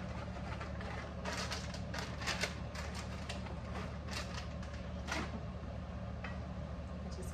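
A plastic bag of pecans crinkling and rattling as the nuts are shaken out into a skillet: a busy run of sharp crackles and clicks over a few seconds. A steady low hum runs underneath.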